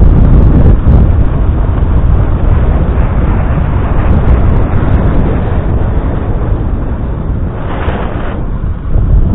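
Wind buffeting the microphone of a camera moving quickly along a lane: a loud, steady, low rumbling noise with no engine note, and a brief brighter hiss near the end.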